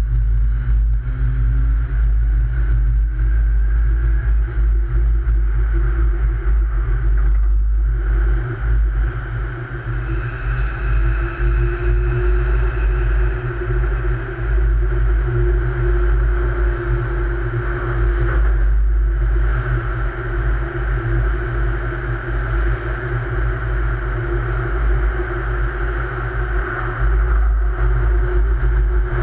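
Metro train running through a tunnel: a steady deep rumble with a constant motor whine on top. The whine rises in pitch over the first couple of seconds as the train picks up speed leaving the station.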